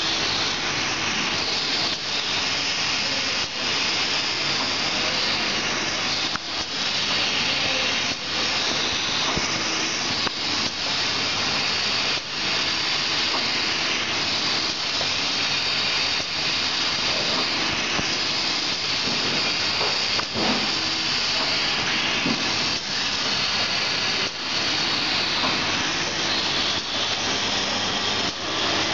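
Shrink-wrapping machine running: a steady, loud airy hiss from the heat-shrink tunnel's hot-air blower, with light mechanical clicks from the L-bar sealer every second or two.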